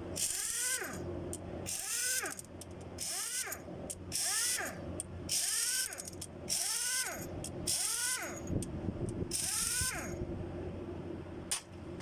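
A small motor spinning up and winding down in short pulses, about eight times a little over a second apart, each pulse with a hiss.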